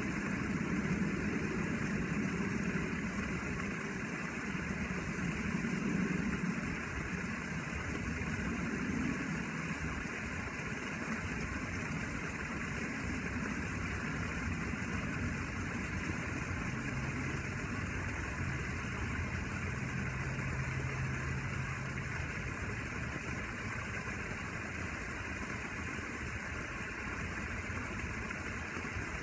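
Steady low engine-like hum over an even background noise, with a lower steady tone joining about two-thirds of the way through.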